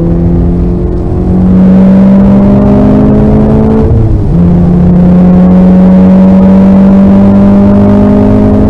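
Car engine pulling under load, its pitch climbing slowly. It breaks briefly about four seconds in, as at a gear change, then climbs again.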